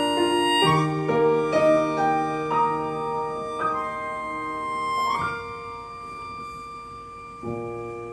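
Wooden-bodied keyboard harmonica (melodica) playing a melody in steady held notes, with lower sustained notes underneath. About five seconds in, a note is held and fades, and a new chord comes in near the end.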